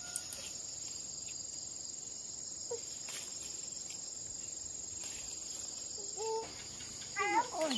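Steady high-pitched insect chorus, like crickets trilling, throughout. Near the end a young child makes a few brief vocal sounds.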